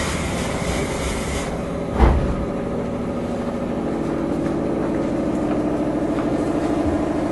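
Inside the motor car of a JR 213 series electric train under way: the steady hum of traction motors, gears and wheels on rail, with a hiss early on and a single knock about two seconds in.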